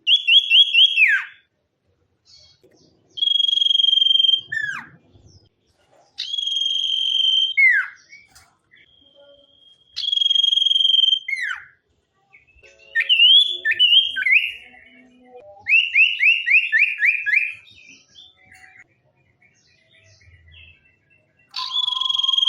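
A sirtu songbird singing clear whistled phrases a few seconds apart. Some phrases are a held high whistle ending in a sharp falling slur; others are quick trills of short repeated notes.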